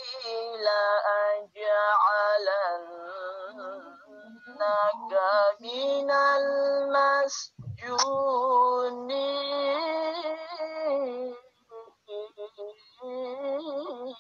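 A single voice chanting Qur'an recitation in a melodic style, holding long wavering notes broken by short breath pauses, trailing off into short snatches near the end.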